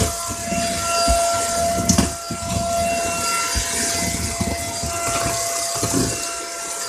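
Dirt Devil Power Stick 4-in-1 stick vacuum running on a floor, a steady motor whine over a hiss of rushing air. Several short knocks and clicks sound as the head is pushed about and picks up debris.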